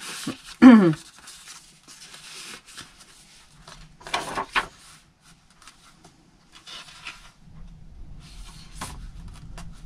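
Paper pages and card tags of a handmade journal rustling as they are handled, with a louder double rustle about four seconds in as a page is turned. About a second in there is a brief, loud sound that falls steeply in pitch.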